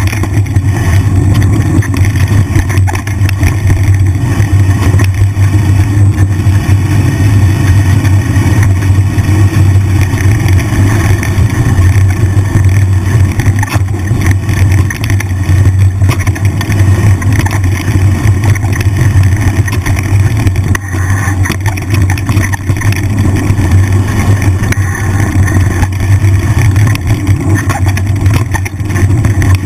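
Mountain bike ridden along a dirt trail, heard as a loud steady low rumble of wind buffeting the GoPro's microphone, mixed with tyre and trail noise.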